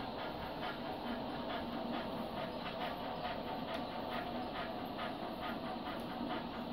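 Model NSWGR 32 class steam locomotive chuffing through its sound decoder at an even beat of about four a second, over a steady hum.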